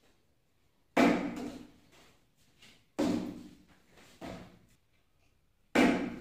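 A partly filled plastic bottle flipped and landing on a table: three loud thuds about two seconds apart, with a softer knock between the last two. After the last thud the bottle is left standing upright, a successful flip.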